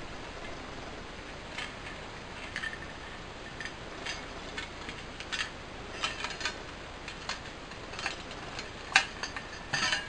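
Scattered small clicks and rattles of metal and ceramic parts as the heating element of a vintage beehive hair dryer is twisted and pulled free of its mounting plate. The sharpest click comes about nine seconds in.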